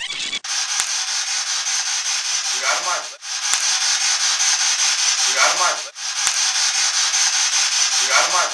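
Boosted recording hiss played in a loop three times, each pass carrying a short, faint voice-like sound near its end. It is presented as a disembodied voice saying "Margaret".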